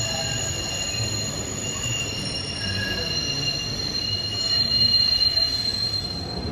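PATH train's steel wheels squealing against the rails in the tunnel: a steady high-pitched squeal of several held tones over a low rumble.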